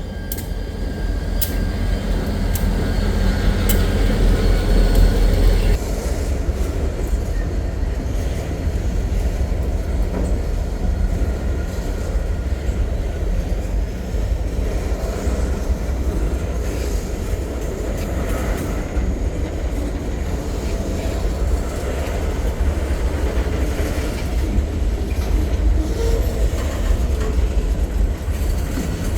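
Freight train passing: the diesel locomotive rumble builds and drops away suddenly about six seconds in, followed by the steady rolling noise of freight cars on the rails.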